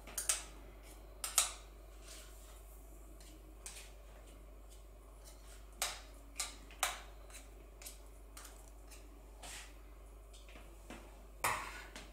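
Scattered sharp clicks and knocks of a spoon and utensils against a glass mixing bowl of mashed potatoes, about eight spread out with quiet between.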